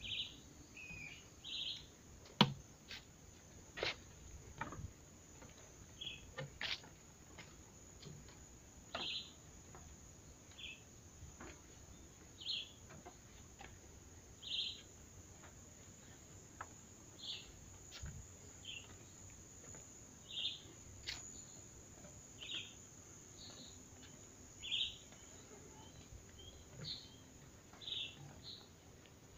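A bird repeating short chirps every second or two over a steady high hiss, with a few sharp clicks, the loudest about two seconds in.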